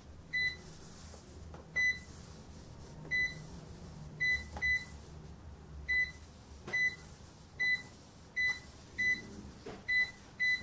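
Sam4S ER-900 series cash register beeping once for each key press as characters are keyed in on its flat keyboard. About a dozen short, high beeps come at uneven intervals, roughly one a second, with a few faint key taps between them.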